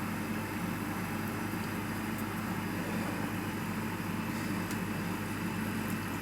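Steady background hum with a low drone and hiss, like a running fan or ventilation, with a few faint ticks.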